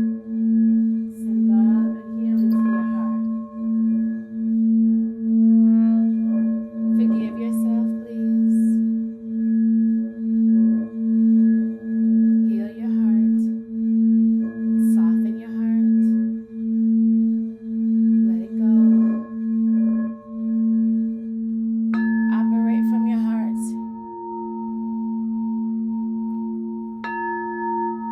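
Singing bowls ringing: one low bowl holds a sustained tone that wobbles about once a second. Two more bowls are struck, about two-thirds of the way in and again near the end, adding higher ringing tones over the low one.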